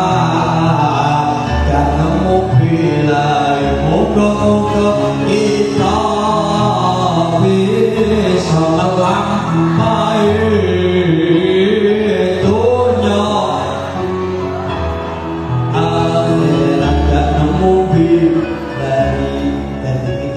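A man's voice singing a melismatic Islamic devotional song (sholawat) into a handheld microphone, amplified through a PA. The long phrases bend and ornament the pitch over low bass notes that shift every few seconds.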